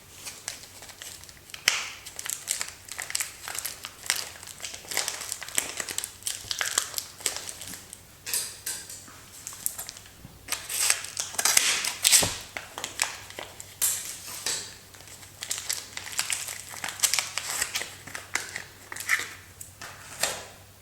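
Soap packaging wrappers being handled and crinkled open by hand: irregular crackling and rustling that goes on throughout, with louder bursts about halfway through.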